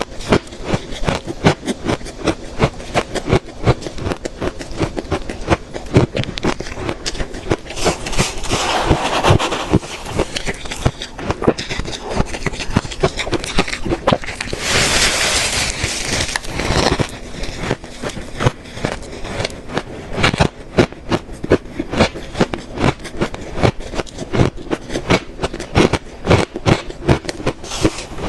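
Close-up crunching and chewing of freezer frost ice, many rapid irregular crunches, with two longer rasping stretches about a third and halfway through.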